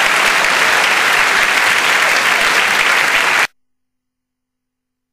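Large audience applauding, a dense steady clapping that cuts off abruptly about three and a half seconds in.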